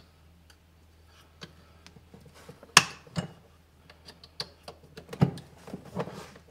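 Plastic wiring-harness connectors, one three-pin and one two-pin, being pushed onto a Club Car golf cart's new MCOR pedal sensor: small scattered plastic clicks and rattles, with the sharpest snaps about three seconds in and again just after five seconds.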